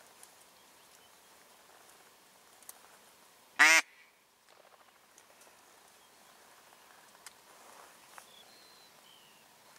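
A duck quacks once, a short, loud quack about three and a half seconds in.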